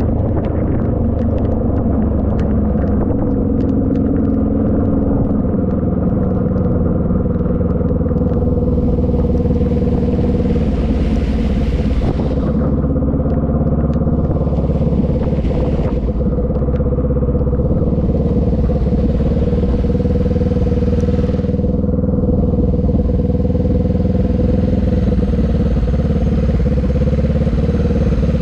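Motorbike engine running steadily on a ride through the rain, with a constant low rumble. Scattered light clicks fall in the first few seconds, and a rushing hiss swells and fades three times in the middle.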